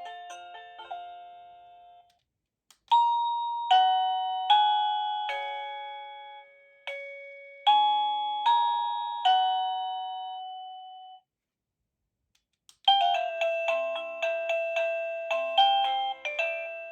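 Avantek wireless doorbell chime playing its electronic melodies one after another. A tune ends, and after a short silence a slow tune of ringing notes follows, each note dying away. After another pause a quicker tune starts near the end.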